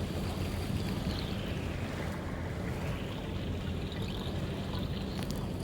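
Boat engine running with a steady low hum, under a continuous wash of water and wind noise.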